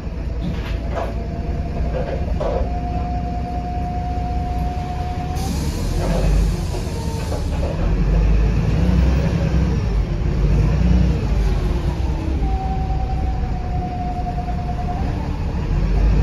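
VDL SB200 Wright Pulsar 2 single-deck bus heard from inside near the rear while underway: a deep diesel engine rumble with a steady whine that holds its pitch, then rises and falls as the bus changes speed, and a few light rattles in the first few seconds.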